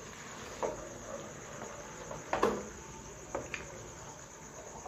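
A spatula stirring macaroni in a wok-style pan: a few short scrapes and knocks against the pan, the loudest about halfway through. A steady high, pulsing trill runs underneath throughout.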